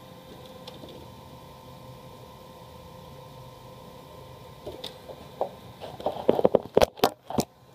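HP LaserJet CP1025 color laser printer running with a steady mechanical hum and a constant tone. About five seconds in, a burst of loud knocks and rattles of handling comes in, strongest near the end.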